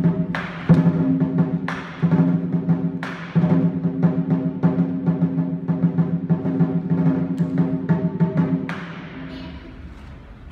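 Lion dance percussion: a Chinese lion drum beaten in fast, dense strokes, with splashy cymbal crashes every few seconds. It drops quieter for the last couple of seconds.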